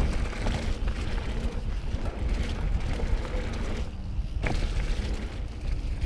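Mountain bike rolling fast down a dirt trail, heard through a handlebar camera: a steady low rumble with rattling knocks from the bumps. The camera gimbal adds an awful vibrating sound.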